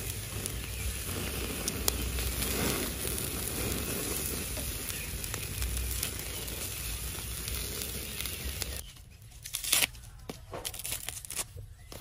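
Steady rustling, crinkling noise with a low rumble and a few sharp snips while chillies are cut with kitchen scissors over a bowl. It drops away suddenly about nine seconds in, leaving a few sharp clicks and taps of a spoon and seasoning bottle.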